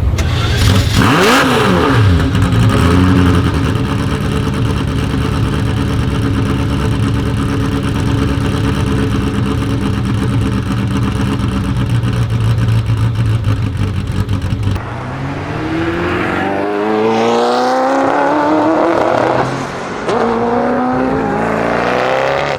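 Straight-piped Ferrari F40 LM twin-turbo V8: a quick rev about a second in, then running steadily and loud. Near two-thirds through it changes to hard acceleration, the pitch rising twice as it pulls through the gears.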